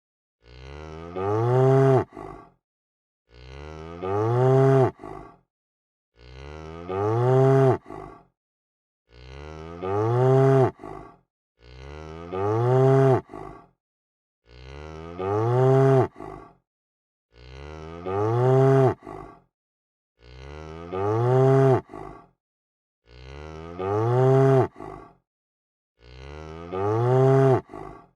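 Cow mooing: the same long call repeated about every three seconds, about ten times, each rising then falling in pitch, loudest near its end, and cutting off sharply into silence.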